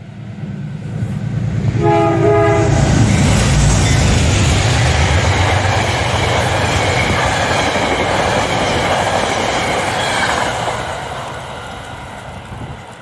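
Metro-North commuter train, locomotive leading and coaches behind, passing at speed through the station with a clickety-clack of wheels over the rail joints. The locomotive sounds a short horn blast about two seconds in. The rumble stays loud for several seconds, then fades as the cab car at the rear draws away.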